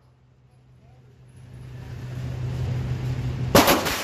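A single pistol shot on an indoor range, sharp and loud, about three and a half seconds in. Before it, a steady low hum and rushing noise swell for about two seconds.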